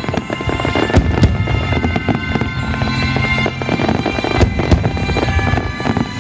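Aerial fireworks bursting with dense crackling, with sharper bangs about a second in and again past the middle, over music with long held notes.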